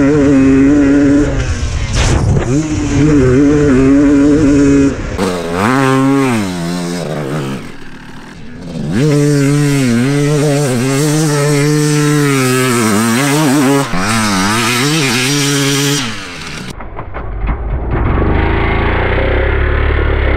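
Two-stroke Suzuki RM motocross bike engine at full song, its revs rising and falling repeatedly with throttle and gear changes, easing off briefly about eight seconds in. About seventeen seconds in the sound turns duller and lower, losing its high end.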